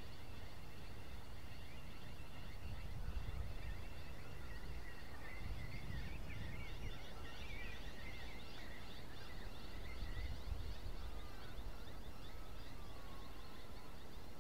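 Wild birds chirping and twittering in a dense chorus, busiest about midway, with a few falling whistles near the end. Under it runs a steady low rumble that swells twice.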